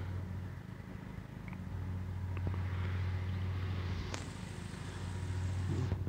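A car going by: its noise swells to a peak about halfway through and fades again, over a steady low hum. A thin high tone comes in about two-thirds of the way through.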